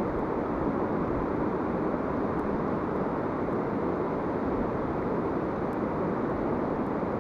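Steady rush of a shallow river running over rapids and riffles: an even, unbroken noise of flowing water.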